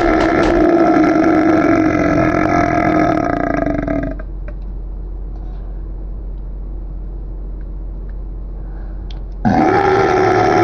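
A steady, buzzy droning tone with a strong pitch, made as one of a series of weird noises. It cuts off about four seconds in, leaving only a faint low hum, and comes back suddenly near the end with a short upward slide.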